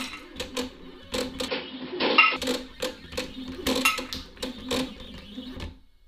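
Dobot Magician robotic arm shaking back and forth, its stepper motors whirring under an irregular run of rattling clicks and knocks from the jerking arm. The shaking stops abruptly near the end.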